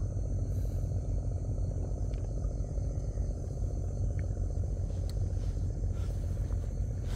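Small boat engine running steadily, a constant low rumble.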